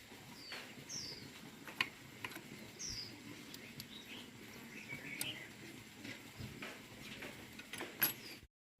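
Birds chirping briefly, a few short falling chirps, over background ambience with scattered light clicks and taps.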